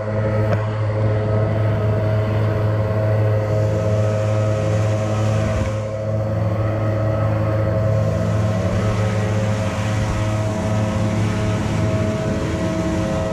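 Several gas-powered backpack leaf blowers running together in a steady, overlapping drone, with leaves rustling as they are blown across the pavement.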